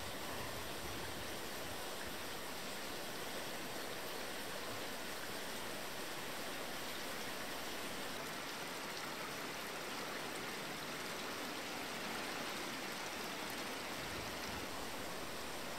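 Steady, even rushing hiss of outdoor ambience, with no distinct events standing out.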